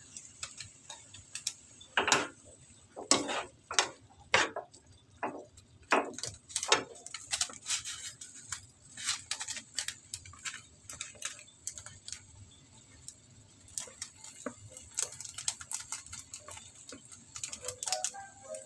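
Squid frying in a pan: irregular sharp pops and crackles, biggest and most spread out in the first several seconds, then quicker and lighter, over a faint steady sizzle.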